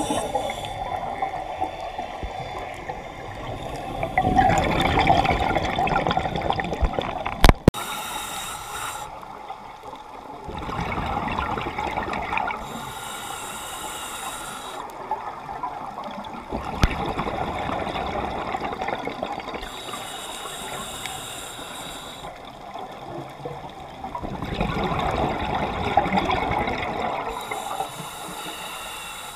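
Scuba breathing heard through an underwater camera housing: the hiss of inhaling through the regulator alternates with the bubbling rumble of exhaled air, one breath every six to seven seconds. Two sharp clicks, the louder about seven and a half seconds in.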